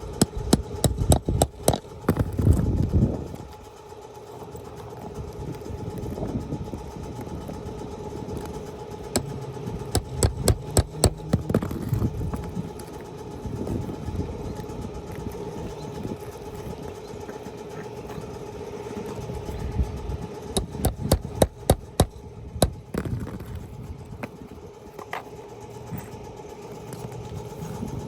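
Three bursts of sharp, rapid tapping and knocking as a wind-damaged asphalt shingle is pried and worked loose for removal. A steady mechanical hum, like an idling engine, runs underneath.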